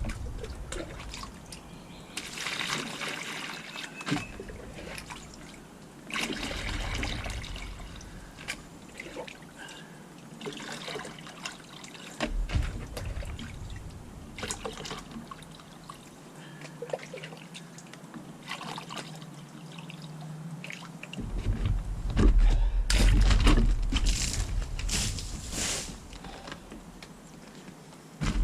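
Water pouring and trickling in uneven spells, with a low rumble that is loudest near the end.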